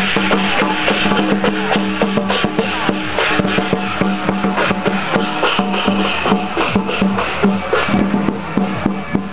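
Loud temple-procession percussion music with a steady held low note, over a dense, irregular crackle of firecrackers going off.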